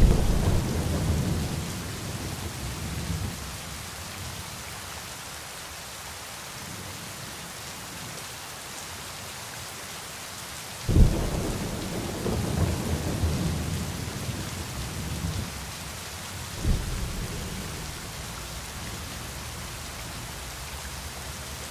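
Steady rain with thunder: rolls of thunder break out at the start, about halfway through, and again a few seconds later, each dying away slowly.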